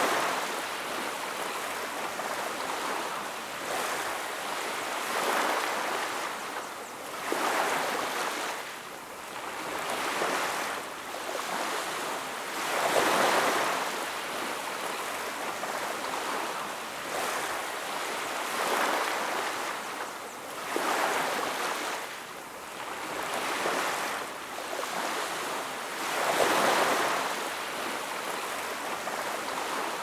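Ocean waves breaking and washing ashore: a steady hiss of surf that swells louder with each wave every few seconds.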